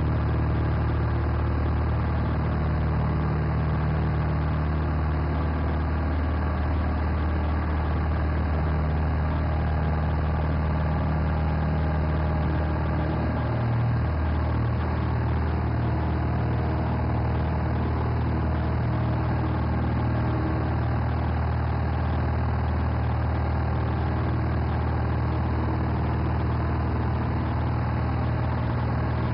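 Single-engine Cessna's piston engine and propeller at takeoff power, heard from inside the cockpit: a steady loud drone through the takeoff run and climb-out, its tone shifting slightly about halfway through.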